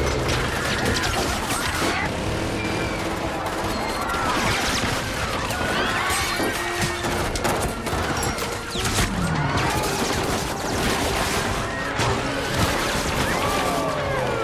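Action-film battle soundtrack: heavy bursts of automatic gunfire with impacts and crashes, over a low rumble, with people screaming and some music underneath.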